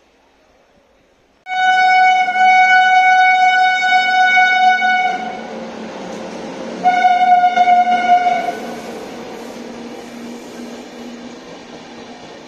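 Indian Railways diesel locomotive horn: a long blast of about four seconds that starts suddenly, then a shorter blast of about a second and a half, over the steady rumble of the train rolling past.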